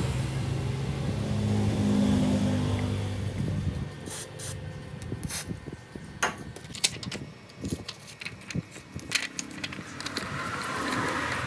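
A steady low hum for about four seconds. Then a run of small, irregular clicks, taps and light scrapes from tools and parts being handled on a smartphone under repair.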